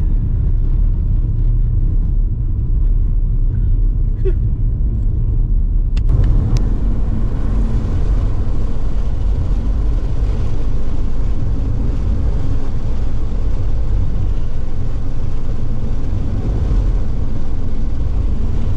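Car driving on a rough dirt track, heard from inside the cabin: a steady low rumble of tyres on the dirt and the engine. About six seconds in, a brighter hiss joins the rumble.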